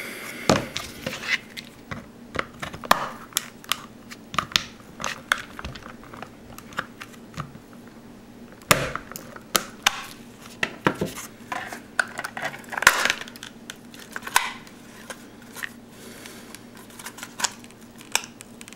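Irregular plastic clicks, creaks and scrapes as the two-piece plastic case of a Motorola Ultra Classic 2 brick phone is pried apart, with a couple of louder snaps around nine and thirteen seconds in.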